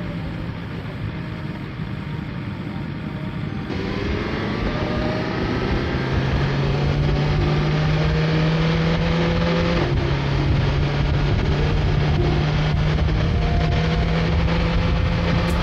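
BMW S1000XR's inline-four engine running as the motorcycle accelerates: its pitch climbs, drops suddenly at a gear change about two-thirds in, then climbs again, over a steady rush of wind noise.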